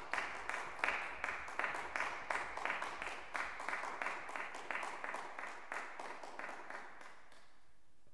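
Audience applause, individual claps heard distinctly, dying away about seven seconds in.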